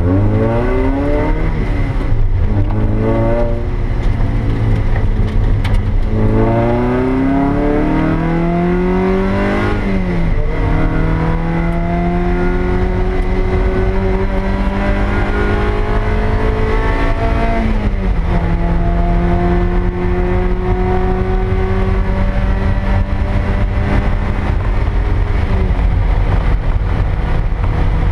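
2000 Toyota MR2 Spyder's stock 1ZZ 1.8-litre four-cylinder engine heard from inside the cabin under hard acceleration on track: the revs climb and drop back twice in the first few seconds as it shifts up, climb again in a long pull, then hold fairly steady with the pitch falling away sharply three times, about ten, eighteen and twenty-six seconds in, as the driver lifts off. Steady road noise runs underneath.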